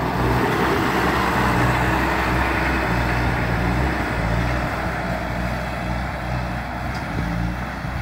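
Bobcat S205 Turbo skid steer's turbo diesel engine running steadily as the machine drives off. It grows slowly fainter as it moves away.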